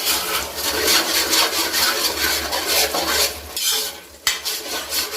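Spoon stirring and scraping thick paneer masala gravy in a cooking pan, in quick uneven strokes, with a brief pause about four seconds in.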